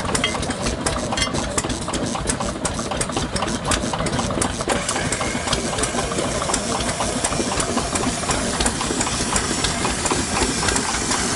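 Small stationary engines running steadily, a fast even knocking beat.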